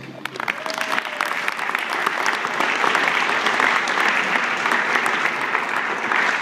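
Audience applauding: many hands clapping, swelling over the first two seconds and then holding steady.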